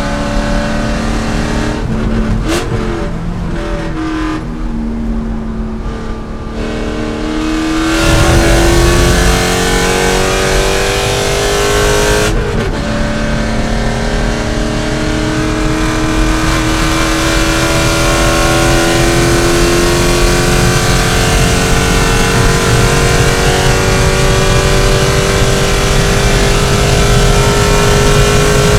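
C5 Corvette race car's V8 running hard. Early on it is off the throttle, its pitch falling with a downshift. It comes back on full power about eight seconds in, shifts up once about four seconds later, and then climbs steadily in pitch under full throttle for the rest of the stretch.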